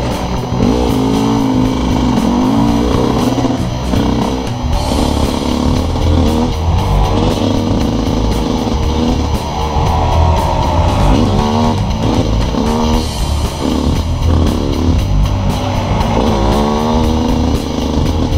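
Gas Gas EC125 two-stroke enduro motorcycle engine being ridden off-road, its pitch rising and falling over and over as the throttle opens and closes. Music plays along with it.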